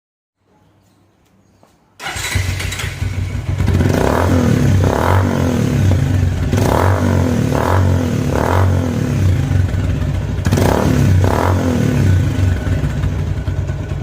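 Bajaj Pulsar 150's single-cylinder four-stroke engine running through an aftermarket SC Project exhaust with its dB killer fitted. It starts abruptly about two seconds in, idles, and is blipped up on the throttle about seven times, then dies away near the end.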